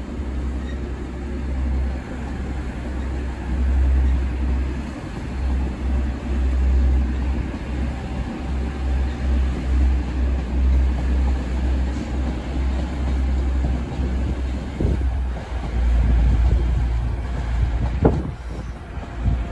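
Low diesel rumble of TransPennine Express Class 185 diesel multiple units moving through the station, with wind buffeting the microphone in gusts. A single sharp click near the end.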